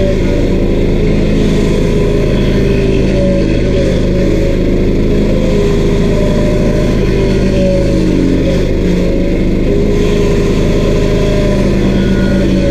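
Stump grinder's 13 HP Honda engine running steadily at high speed, its pitch dipping and recovering slightly as it works.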